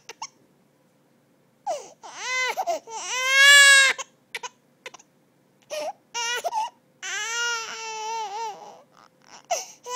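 A four-month-old baby crying from hunger. After a breath-held pause of about a second and a half, it lets out a string of high wailing cries broken by short gasps. The loudest cry comes about three and a half seconds in, and a long wail follows near the end.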